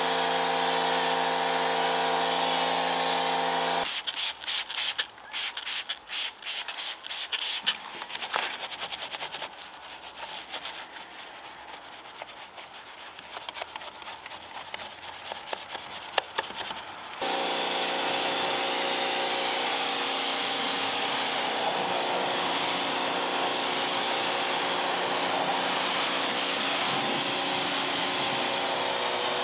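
A vacuum cleaner runs steadily and cuts off about four seconds in. Irregular rubbing and scrubbing strokes follow, louder at first and then softer. About seventeen seconds in the vacuum starts again and runs on.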